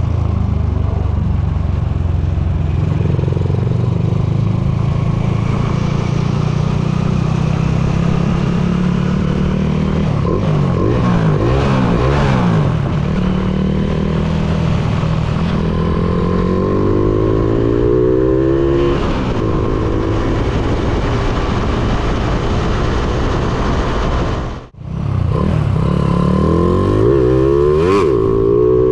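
Honda Supra X underbone motorcycle with its single-cylinder four-stroke engine bored out to 185 cc, being ridden hard: the engine note climbs and falls repeatedly as it accelerates and eases off. The sound cuts out for a moment near the end, then the engine note climbs again.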